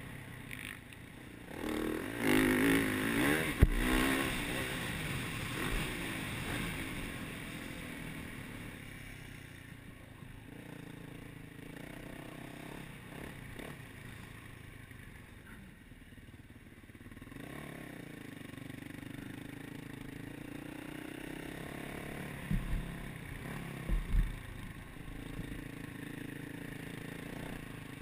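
Yamaha YZ450F's single-cylinder four-stroke engine heard from an onboard camera, revving hard for a couple of seconds near the start, then running at low revs as the bike rolls along. Two short thumps come near the end.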